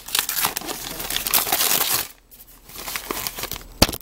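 Gift-wrapping paper crinkling and tearing as it is pulled off a wrapped board book, in two spells with a short lull about two seconds in. There is a single sharp click near the end.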